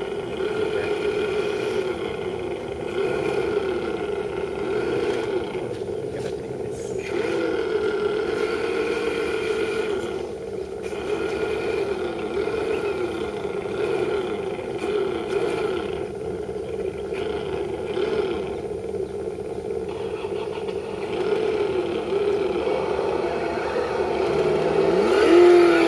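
Electric motors and geared drivetrains of several scale RC crawler trucks whining steadily, the pitch rising and falling as the throttle is worked, with a louder surge near the end as one truck pushes into the water.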